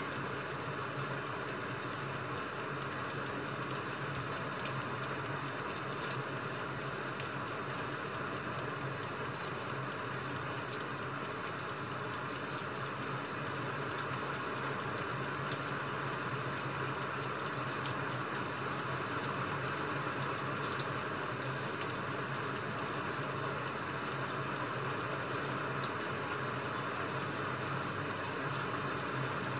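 Rain-and-crackling-wood-fire ambience: a steady hiss of rain with scattered sharp crackles throughout.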